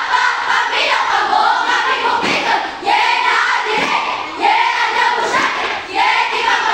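A group of schoolchildren chanting a cheer yell in unison: many high voices shouting together in short, loud phrases.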